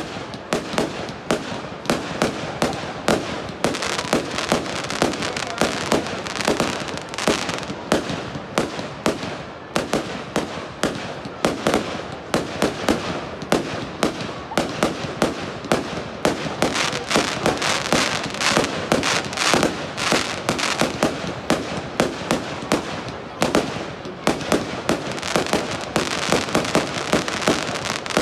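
Aerial fireworks bursting overhead in rapid succession: a continuous run of sharp bangs, several a second, over a steady crackle.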